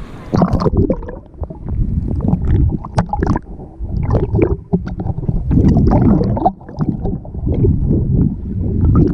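Seawater sloshing and gurgling against a camera held at and under the surface, heard muffled and low, in irregular surges with splashes.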